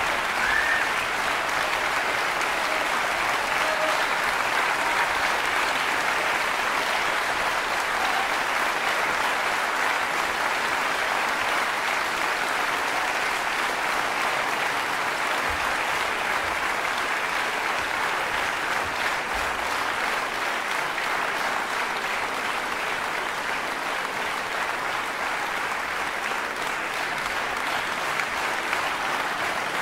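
Concert audience applauding, a dense, steady clapping for the pianist's bow.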